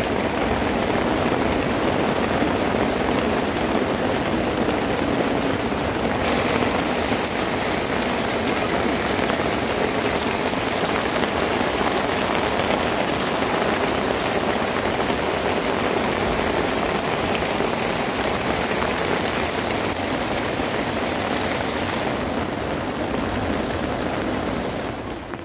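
Heavy rain falling steadily, an even hiss that turns sharper and brighter from about six seconds in until a few seconds before the end.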